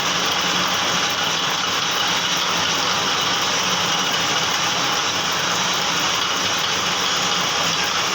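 Metal lathe running steadily while turning a mild-steel bush: an even, unbroken machine noise with a faint steady hum under it.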